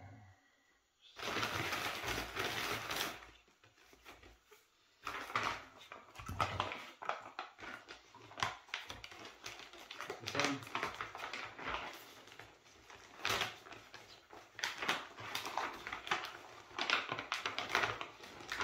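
Plastic bag and foil-lined paper bag crinkling and rustling as they are handled and the powdered aluminium is tipped into the bag of ammonium nitrate. There is a dense spell of rustling about a second in, a brief lull, then a run of irregular sharp crinkles.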